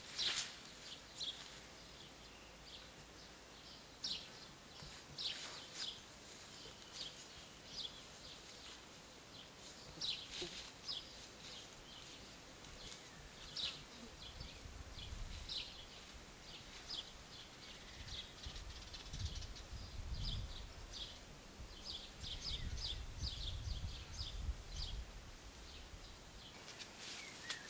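Small birds chirping in short, scattered calls, with a low rumble joining in the second half.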